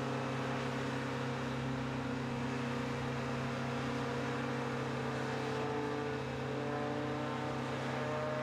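Steady drone of an aircraft engine: a low hum with overtones, holding an even level, its pitch shifting slightly around the middle.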